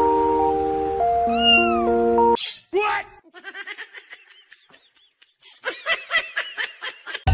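Background music with a cat's meow over it, cutting off about two and a half seconds in. A cat then gives one loud, falling meow, and near the end a quick run of short meows.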